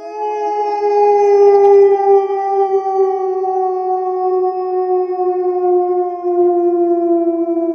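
Wolves howling: one long howl with a second voice just below it in pitch, rising quickly at the start, then holding and sliding slowly downward.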